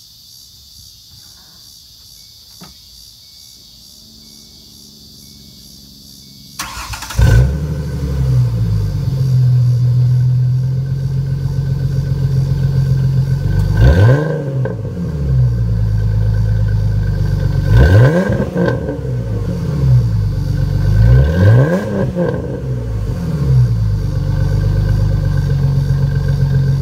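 2006 Ford Mustang's 4.0-liter V6 with a loud single Flowmaster exhaust starting up about a quarter of the way in, then idling and revved several times in quick blips that rise and fall.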